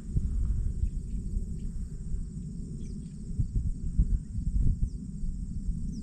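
Uneven low rumble of wind buffeting the microphone, over a steady high-pitched insect chorus in the grass.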